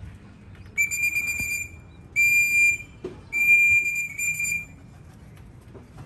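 A whistle blown in three steady, high blasts, the last the longest: a pigeon fancier whistling to call returning racing pigeons down into the loft.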